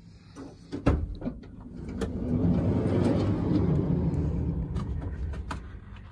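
2016 Ford Transit's sliding side door being unlatched with a loud clack, then rolled open along its track with a long rumble that swells and fades, with a few more clicks near the end.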